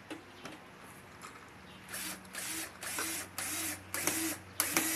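Push-action screwdriver driving a screw into wood: after about two seconds of quiet, a run of about six short whirring ratchet strokes, roughly two a second, as it is pumped down onto the screw.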